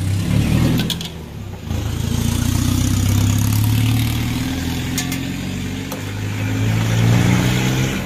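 A motor vehicle engine running, with a short rise and fall in pitch in the first second, then a steady low hum from about two seconds in.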